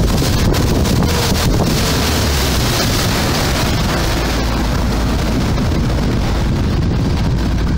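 Pioner plastic motorboat under way at planing speed: steady motor noise and water rushing along the hull, with heavy wind buffeting on the microphone.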